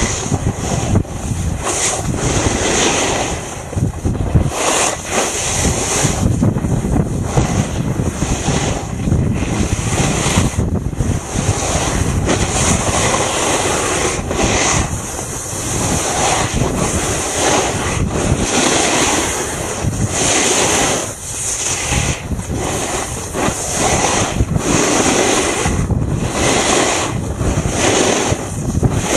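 Wind rushing over the microphone of a camera carried downhill on the snow, mixed with the hiss and scrape of a board or ski edges sliding over the snow, surging and easing unevenly as the rider turns.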